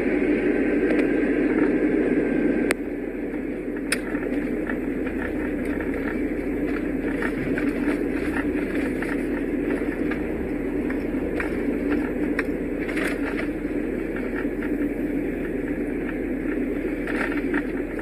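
Car driving on a snow-covered road: steady tyre and engine noise, with scattered light ticks. A sharp click about three seconds in, after which the noise is a little quieter.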